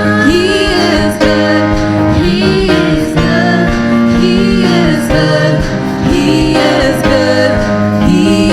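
Praise and worship music: a live band with a singer, sustained chords under a bending vocal line and a steady beat.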